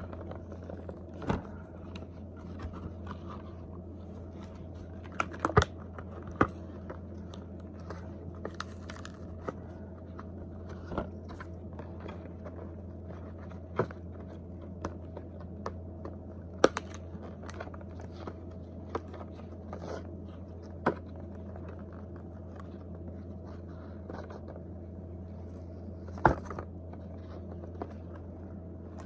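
Cardboard knife packaging being pulled and torn open by hand, with scattered crinkles, scrapes and sharp clicks over a steady low hum.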